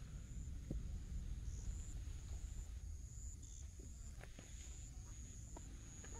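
Outdoor ambience: a low wind rumble on the microphone under a steady, high-pitched insect trill, with a few faint footstep scuffs on pavement.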